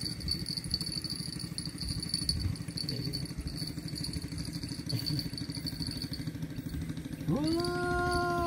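Fishing reel being cranked fast while a hooked river fish is played in, a steady rapid rattle. About seven seconds in, a man lets out a long held call as the fish comes up out of the water.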